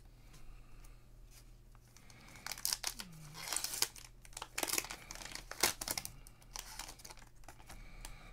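Plastic cello-pack wrapper of Panini Prizm football cards being torn open and crinkled by hand, a quick run of sharp crackling and ripping that starts a couple of seconds in and lasts about three and a half seconds, followed by faint rustling as the cards are handled.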